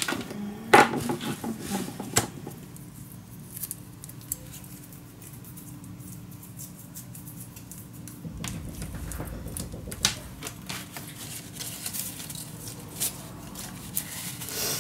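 Scattered small clicks, taps and rustles of painting supplies being handled on a tabletop, with a faint steady hum underneath.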